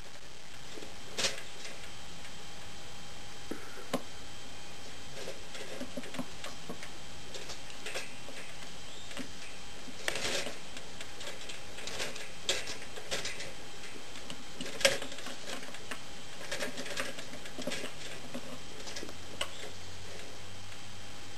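Scattered sharp clicks and rattles of a young squirrel's claws on the wire bars of its cage as it climbs along the cage roof, over a steady hiss.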